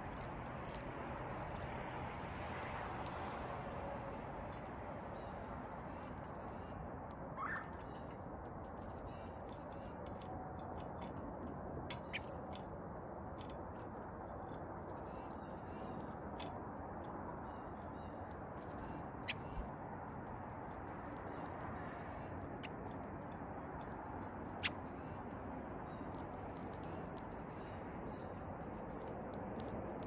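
Small birds chirping now and then, high-pitched and faint, over a steady background hiss, with one louder rising call about seven seconds in. A few sharp taps stand out, typical of bird beaks pecking seed on a hard feeding table.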